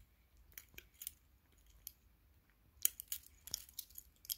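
Faint, scattered small clicks and clinks from a Sekonda stainless steel link-bracelet watch being handled. There are a few early on, then a quicker cluster about three seconds in.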